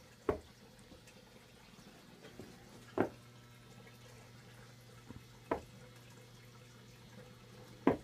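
A shoe stamping on a carpeted floor four times, about two and a half seconds apart, the first and last stamps the loudest, over a low steady hum.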